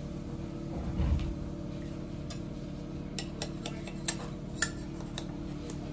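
Scraper working a printed plastic part loose from the glass build plate of a Dremel 3D45 3D printer: scattered sharp clicks and scrapes from about two seconds in, after a single low thump about a second in, over a steady hum.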